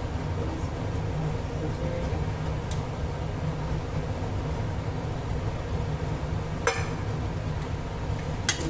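A small steel bowl clinks sharply against a metal kadhai on the gas stove, twice: about two-thirds of the way in and again near the end, each with a short metallic ring, over a steady low rumble.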